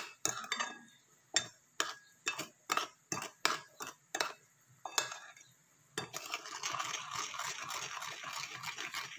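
Metal spoon stirring a thick ketchup and soy sauce mixture in a ceramic plate: a run of sharp clinks of the spoon against the plate, about two a second, then from about six seconds in a continuous scraping stir.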